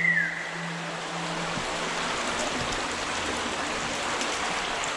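Water running steadily through a brick culvert, echoing in the tube. A short high whistle-like note sounds at the very start, and a low steady tone stops about a second and a half in.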